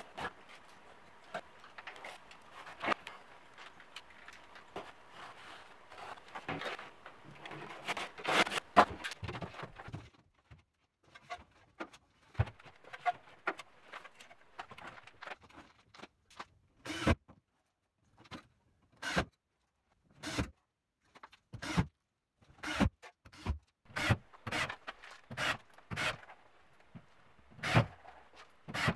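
Drywall framing work with plasterboard and metal stud profiles: about ten seconds of scraping and handling noise, then a string of separate short, sharp knocks and clicks with pauses between them.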